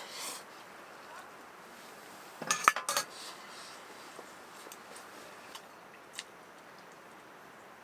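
Utensils clinking against dishes or cookware: a quick cluster of clinks about two and a half seconds in, then a few faint ticks over a low steady hiss.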